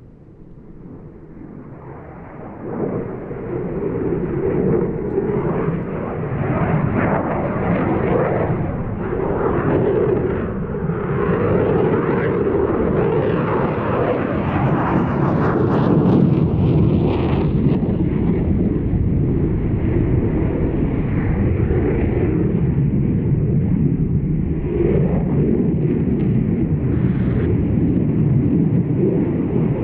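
Jet noise from a Eurofighter Typhoon's two Eurojet EJ200 turbofans in a display flypast. It swells over the first three seconds and then stays loud and steady.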